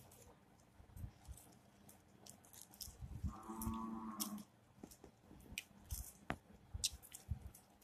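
Faint taps and light rustling from hands handling a paper cutout on a cup. Around three seconds in, one steady pitched sound lasts about a second.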